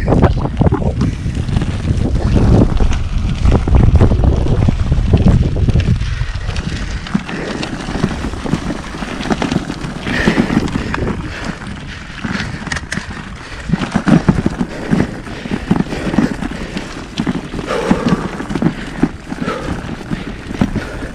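Wind buffeting the microphone of a bicycle-mounted camera, heavy for about the first six seconds and then easing. Under it, the crunch and rattle of 30 mm road-bike tyres rolling over a gravel road.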